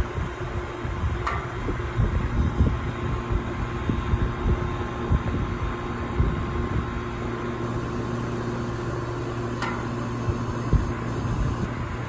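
Outdoor condensing unit of a 2001 York central air conditioner running: the compressor and condenser fan make a steady hum with a whoosh of moving air, and uneven low rumbles underneath.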